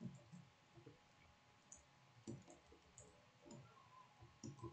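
Faint computer keyboard typing: scattered soft key clicks.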